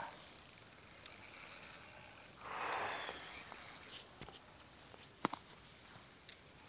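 A hooked fish swirling and splashing at the water's surface as it is played on a rod, with one rush of splash about two and a half seconds in. A few sharp clicks follow near the end.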